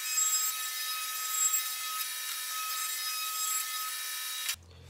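Table-mounted wood router with a roundover bit running and cutting the edges of small wooden steps, a steady high whine with the rasp of the wood being cut. The sound is played back sped up, and it cuts off abruptly near the end.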